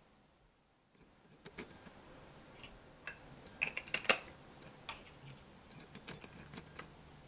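Samsung 60mm F2.8 macro lens and its plastic cap being handled: scattered small clicks and light taps, starting about a second and a half in, with the sharpest click about four seconds in.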